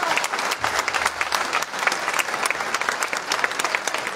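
A large seated crowd applauding, many hands clapping in a steady, dense patter.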